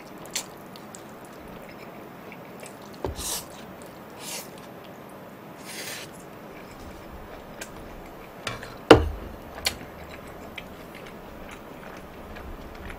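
A person eating jjajangmyeon (black-bean-sauce noodles) with chopsticks: a few short slurps and chewing, with one sharp click about nine seconds in.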